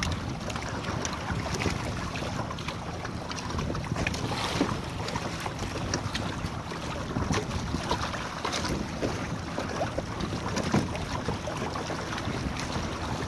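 Wind buffeting the microphone over a steady rush of water, with irregular splashes and slaps of small waves against the hull of a Hobie sailing kayak under sail.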